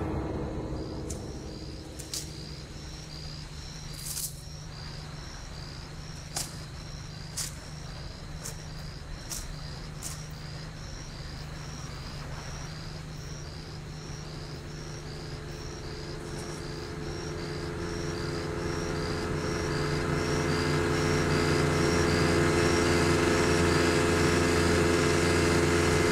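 Small motorboat's engine running steadily, growing louder over the last third as the boat comes closer. Over it an insect gives a regular high chirp, repeating steadily, and a few sharp clicks sound in the first ten seconds.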